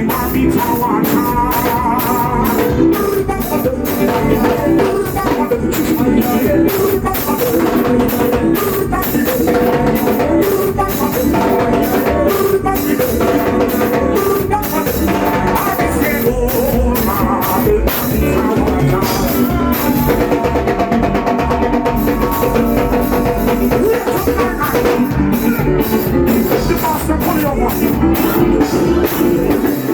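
Loud music with a steady drum beat and singing.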